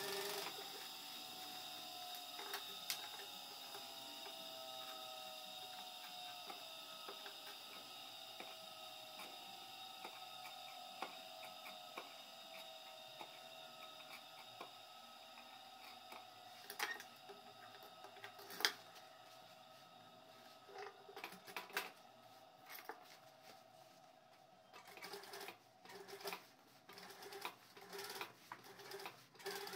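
Industrial lockstitch sewing machine stopping its stitching just at the start, then a mostly quiet pause at the sewing table: a faint whine slides slowly down in pitch, a couple of sharp snips come as thread is trimmed with scissors, and from about twenty seconds in there is irregular rustling and tapping as the denim and pocket lining are handled and positioned.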